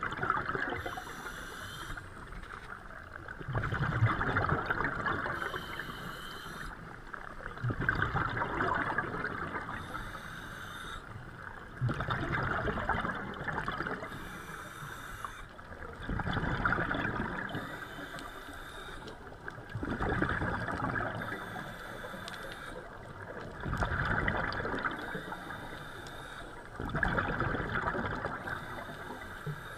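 Scuba diver breathing through a regulator underwater: a short hiss on each inhalation, then a louder rush of exhaled bubbles, repeating about every four seconds.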